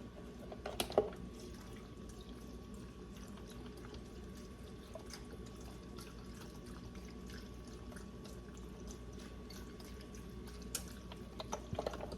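Chicken broth pouring into a pot of green beans: a faint steady stream of liquid, with a few small clicks near the start and near the end.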